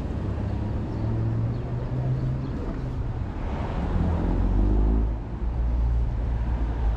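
City street traffic: a steady low rumble of passing vehicles, swelling briefly about four to five seconds in.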